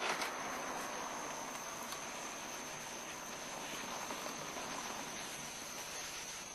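Crickets chirping in a steady high trill, with the low running noise of a car rolling slowly up, loudest at the start.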